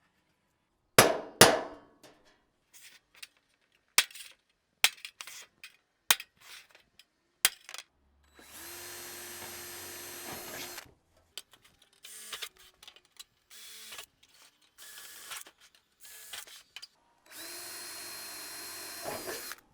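A center punch is struck against the rain gutter with about six sharp, separate taps, marking the hole spots. Then a cordless drill runs steadily for about two seconds, gives several short blips, and makes a second steady run of about two seconds near the end, drilling through the gutter.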